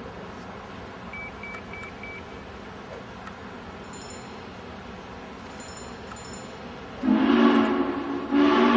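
Union Pacific 3985 'Challenger' 4-6-6-4 steam locomotive's chime whistle, sounding two loud blasts in quick succession near the end, each a chord of several notes.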